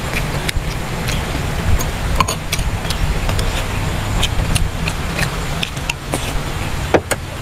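Close-up mouth sounds of eating braised pork leg: chewing and lip smacking, with scattered short clicks from the mouth and a metal spoon, over a steady low rumble.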